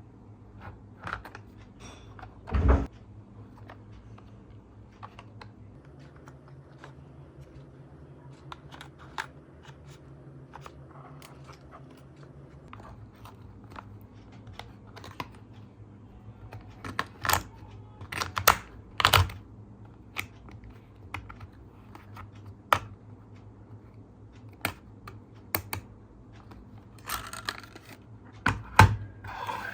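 Irregular small clicks and taps of hard plastic being handled, with a few louder knocks about three seconds in, in a cluster around two-thirds of the way through, and near the end. A steady low hum runs underneath.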